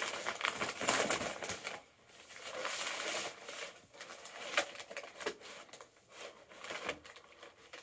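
Brown paper mailer bag rustling and crinkling as it is pulled open and handled, in irregular bursts with a few sharp crackles.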